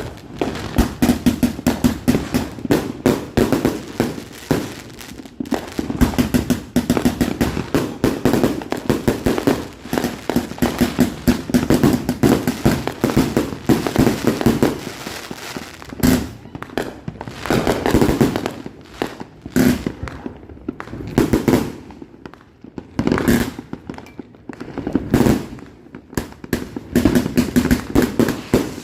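Consumer fireworks going off in rapid succession: a dense run of crackling bangs that thins about halfway through into separate clusters of bangs every second or two.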